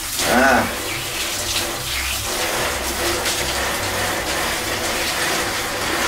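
Water spraying from a handheld shower head onto a bathroom door, a steady hiss of spray splashing off the door and floor. A brief voice-like sound comes about half a second in.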